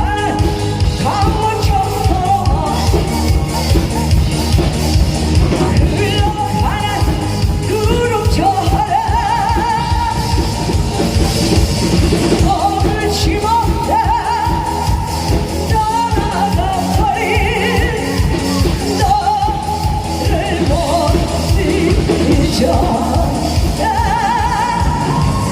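A solo voice singing with vibrato on long held notes, over loud music with a steady drum beat.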